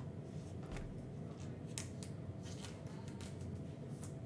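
Trading cards being handled: faint scattered ticks and slides as the cards are flipped through by hand and laid down on a mat.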